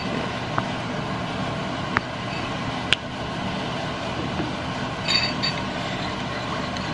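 Metal spoon stirring a sauce in a ceramic bowl, clinking sharply against the bowl about three times, then a short run of scraping and clinks about five seconds in, over a steady background rushing noise.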